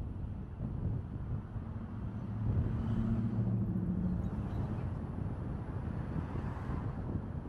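Steady road rumble and wind noise from a car driving slowly along a city street. A vehicle engine hum swells for about two seconds in the middle.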